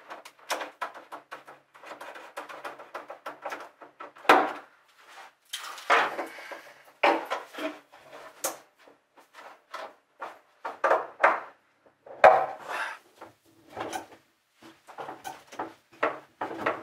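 Irregular clicks, knocks and short scrapes of hands and a tool working a brass valve and hose fittings in a plywood tank locker, with louder knocks about four and twelve seconds in.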